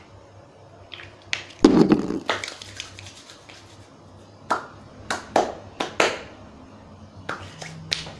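Short hissing spritzes from a small spray bottle of hand sanitizer and hands rubbing together, with one louder thump about two seconds in.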